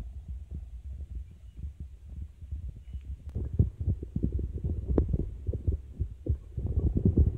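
Muffled low rumble of water moving against a phone microphone held underwater, with irregular low knocks that get busier and louder from about three seconds in, and one sharp click about five seconds in.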